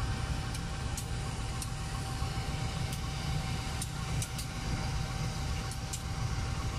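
CC 203 diesel-electric locomotive's engine running with a steady low rumble, with a few faint ticks now and then.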